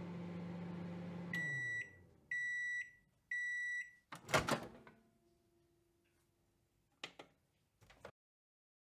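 Microwave oven running with a low hum that winds down as the timer runs out, followed by three long, evenly spaced high beeps signalling the cycle is done. About four seconds in comes a loud clunk, and two softer clicks follow near the end.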